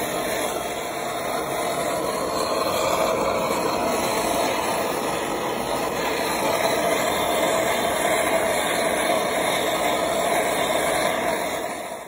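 Handheld gas-cartridge blowtorch burning with a steady rushing noise while it heats the bores of a seized engine block, where white spirit is also burning.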